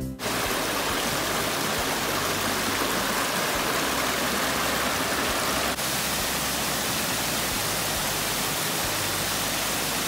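Steady rushing of a small brook flowing over rocks, then, after a cut a little over halfway through, a small cascade pouring over a rock ledge with the same even rush of water.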